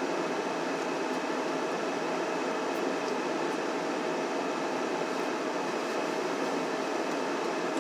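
Steady whir of a car's cabin ventilation, the heater fan blowing air, with a constant low hum underneath.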